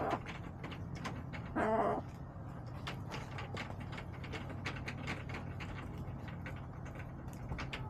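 Backyard hens pecking and scratching close by: a run of light clicks and taps, with one hen's short call about two seconds in. A steady low hum lies underneath.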